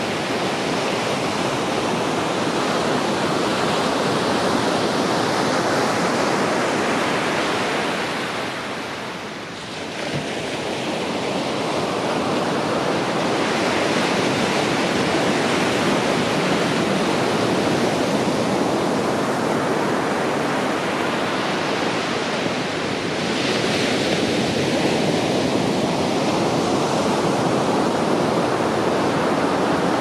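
Ocean surf: waves breaking and washing up a sandy beach in a steady rush. It eases briefly about nine seconds in, then swells again as the next waves come in.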